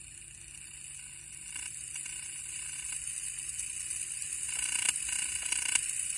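Electromagnetic interference from a smartphone camera, picked up and played as sound: a high, steady hiss and buzz that grows louder as the pickup comes closer to the phone, with a few short crackles in the second half.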